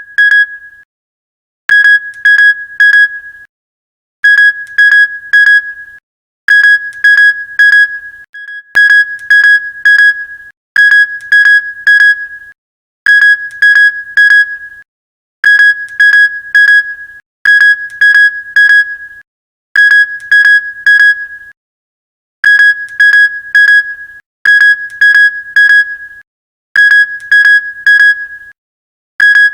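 Electronic alarm-clock beeping: one high tone in quick groups of about four beeps, a group every two seconds or so, with silence between. This is the wake-up alarm at the end of the sleep track.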